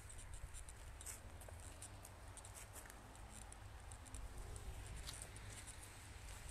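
Faint, irregular footsteps crunching on a frozen, partly snowy cemetery path, over a steady low rumble on the microphone.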